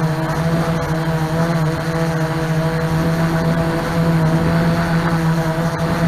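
Multi-rotor drone's propellers humming steadily in flight, a held buzzing tone over a rush of air.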